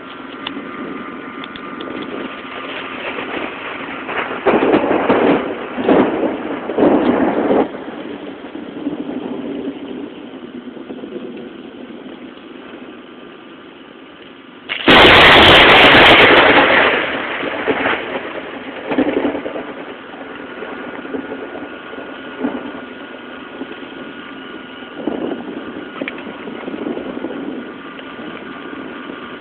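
Close lightning strike: a sudden, very loud thunderclap about halfway through that overloads the cellphone microphone for about two seconds, then fades away. A few shorter loud bursts of noise come several seconds before it.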